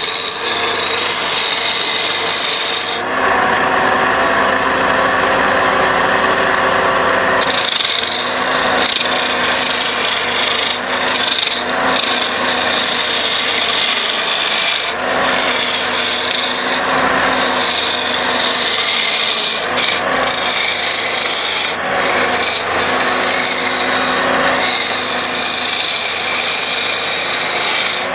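Wood lathe running while a turning chisel cuts and scrapes the spinning wood of a pestle blank: a loud, continuous scraping and rasping that shifts in tone a few times.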